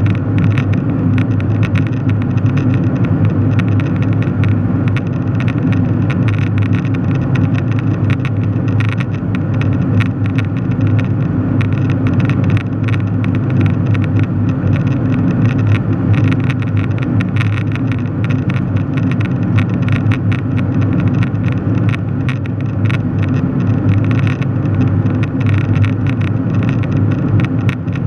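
Steady cabin noise of an airliner in cruise: a constant low drone of jet engines and rushing air, with a fine crackle on top.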